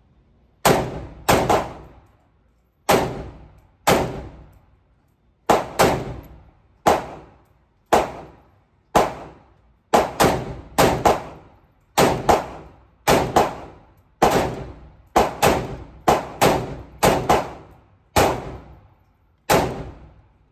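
Century Arms VSKA, a semi-automatic AK-pattern rifle in 7.62x39mm, firing about two dozen shots at an uneven pace, some single and some in quick pairs. Each shot has an echoing tail from the indoor range.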